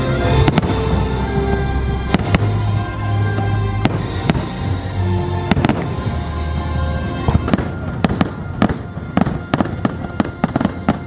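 Fireworks show: aerial shells bursting in sharp bangs over the show's music soundtrack, whose held notes carry through the first half. From about seven and a half seconds in, the bangs come thick and fast in a rapid run.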